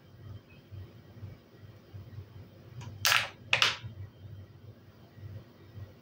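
A thin clear plastic food tray of lardons crackling twice in quick succession about three seconds in, as it is gripped and tilted while the lardons are picked out.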